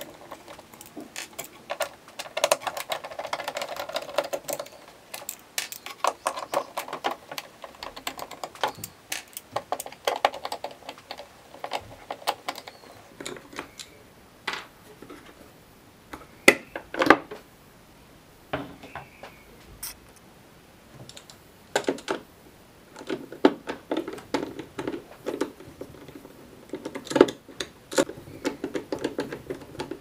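Screwdriver working screws out of the plastic frame of a Philips espresso machine: runs of quick clicking and scraping, with a few sharp plastic knocks as parts are handled.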